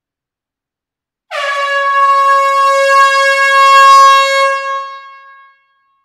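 One long air horn blast in a small enclosed hall: a single steady note that starts abruptly about a second in, holds for about three seconds, then fades away.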